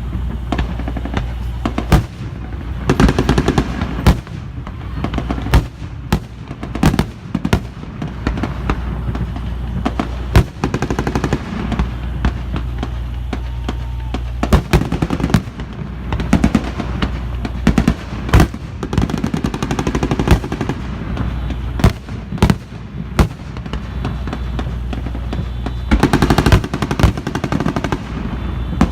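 Simulated anti-aircraft fire: irregular loud bangs and booms, with dense rapid volleys about three seconds in and again near the end, over a steady low drone.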